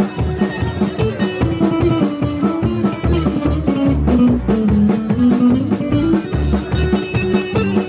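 Live band playing amplified dance music, with a guitar melody over drums keeping a steady beat.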